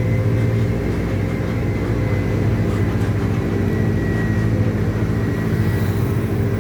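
Diesel engine of a Mercedes-Benz OF-1722M city bus running steadily at an even speed.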